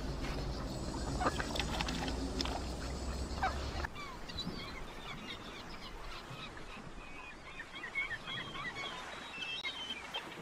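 Birds calling in the background: many short chirps and calls. A steady low rumble stops abruptly about four seconds in, leaving the calls clearer.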